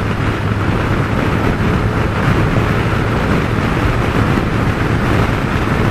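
Kawasaki Concours touring motorcycle cruising at steady speed: even engine hum under wind and road noise.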